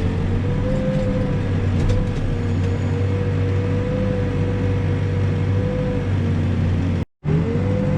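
Backhoe's diesel engine running steadily, with a steady whine above the engine drone. The sound drops out completely for a split second about seven seconds in.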